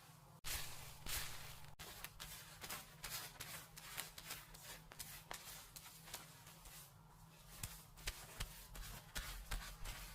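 Hands rubbing and scratching through hair on the scalp, close up: a crackly rustle full of small clicks, cutting out briefly about half a second in.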